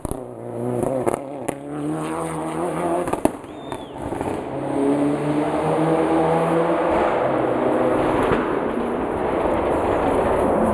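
Mitsubishi Lancer Evolution's turbocharged four-cylinder engine at race revs through a hairpin, with several sharp bangs in the first four seconds. The car then accelerates hard away, its engine note rising and holding steady.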